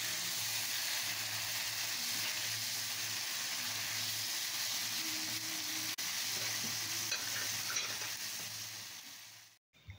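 Beef karahi frying and sizzling in oil in a non-stick pan while being stirred with a spatula. The sizzle is steady, then fades out near the end.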